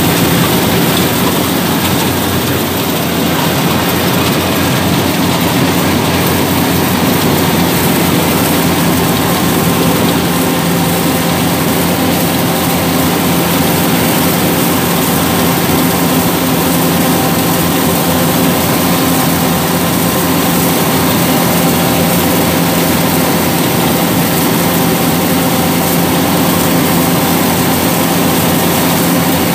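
Yanmar 850 rice combine harvester running steadily under load as it cuts rice, heard from the driver's seat: the engine and the cutting and threshing machinery make one loud, unbroken hum.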